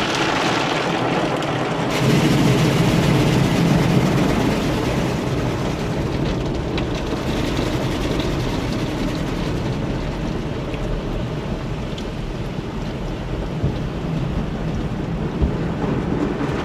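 Car-wash water jets and foam pounding on a minivan's windshield and roof, heard from inside the cabin: a steady rushing downpour with a deep rumble, getting louder about two seconds in. Near the end the wash's cloth brushes begin to sweep over the windshield.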